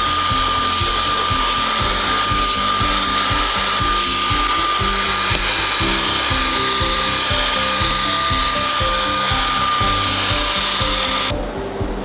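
Belife S11 cordless vacuum with a brushless motor, used as a handheld to pick up crumbs from a car seat, running with a steady high whine and rushing air. It cuts off abruptly near the end. Background music with a beat plays underneath.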